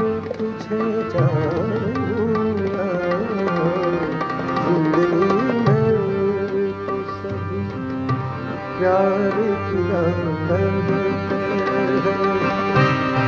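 Ghazal accompaniment of tabla and harmonium, with a man's voice singing wavering melodic runs without words over the held harmonium tones.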